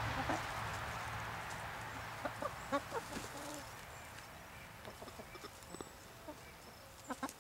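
Domestic hens clucking softly: short scattered clucks and chirps, a few close together about three seconds in and a couple more near the end.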